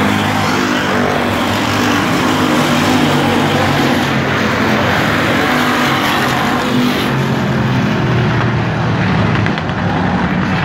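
A pack of dirt-track stock cars racing around the oval, their engines running hard in a steady, loud drone as cars go past.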